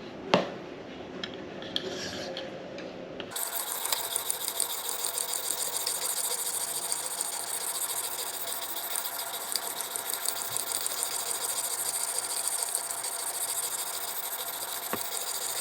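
A 1500-grit stone on a KME guided knife sharpener worked back and forth along a steel knife edge: a steady, fine, gritty hiss that starts about three seconds in and carries on almost to the end. A sharp click comes about half a second in.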